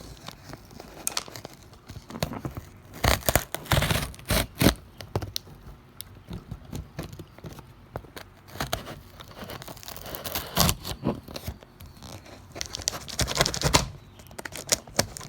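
A package being torn and opened by hand: irregular tearing, rustling and crinkling of packing material, loudest in clusters a few seconds in and again near the end.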